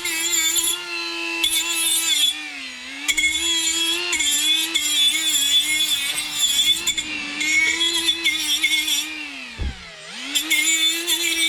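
Angle grinder grinding rust from a car trunk's sheet metal, its steady motor whine sagging when it is pressed into the work. Near the end the pitch drops sharply under heavy pressure, then spins back up.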